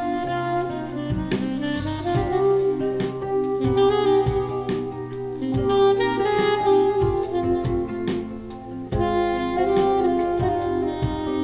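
A smooth-jazz saxophone track with drums, played back through Altec loudspeakers (414-16B woofers and 802D compression drivers on 811 horns) driven by Heathkit W5M tube amplifiers with KT66 output tubes, picked up in the room by a cheap microphone. The saxophone holds melodic notes over a steady drum beat.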